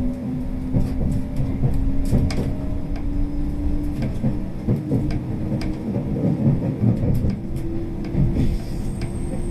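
Running noise inside a 381-series electric limited-express car in motion: a steady low rumble with irregular clicks and knocks from the wheels on the rails, and a low hum that rises slightly in pitch, joined near the end by a second, slightly higher hum.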